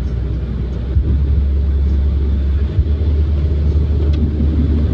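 Car driving in the rain: a steady low rumble of road noise under a hiss of wet tyres and rain, with a few faint ticks.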